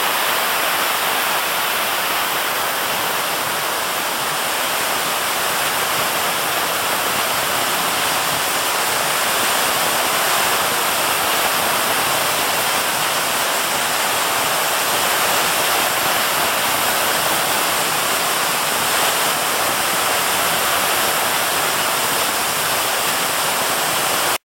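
Steady, loud rushing hiss of a running IS glass bottle-forming machine in production. It cuts off suddenly right at the end.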